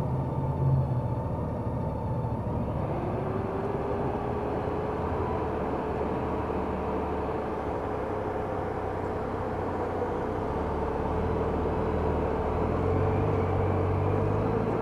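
Honda F6B's flat-six engine running under way, with wind and road noise at the helmet. A whining tone rises about three seconds in and then holds, and the engine grows louder near the end.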